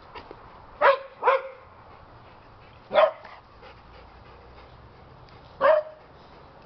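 A dog barking four times: two barks in quick succession about a second in, one more about three seconds in, and a last one near the end.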